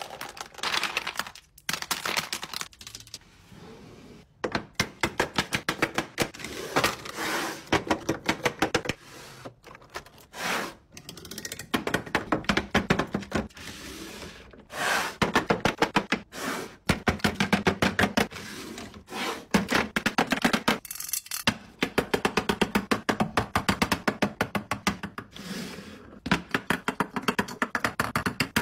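Makeup being sorted into clear acrylic organizers: rapid clicks and taps of plastic lip gloss tubes and eyeshadow palette cases set into acrylic slots, with occasional heavier thunks.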